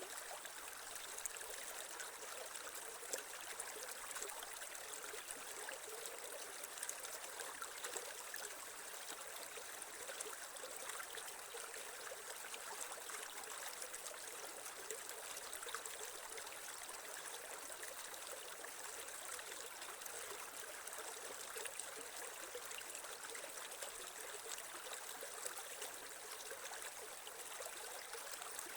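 Creek water flowing and trickling steadily, with small splashes and gurgles, and little low rumble.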